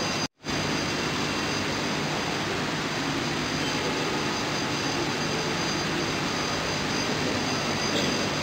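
Steady, even rushing background noise with a faint high whine, cut off completely for a split second shortly after the start and then carrying on unchanged.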